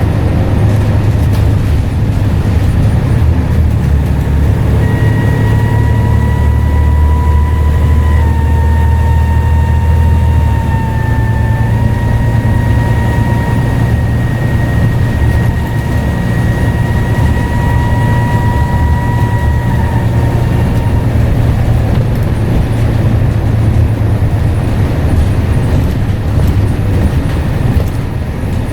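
Scania N94UD double-decker bus engine running under load with a loud low drone, its turbocharger whistling. The high steady whistle comes in about five seconds in, holds with a couple of small dips in pitch, and fades out after about fifteen seconds, leaving the engine drone.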